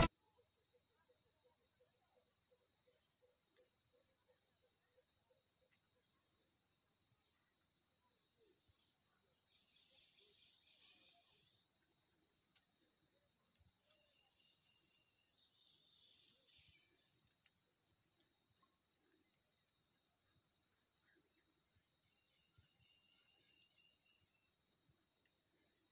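Faint chorus of insects: a steady, high-pitched trill that goes on without a break.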